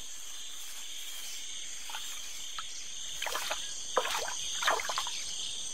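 Steady high-pitched insect chorus of the rainforest, with a handful of small wet splashes and slaps in the second half as a fish slithers over mud into shallow water.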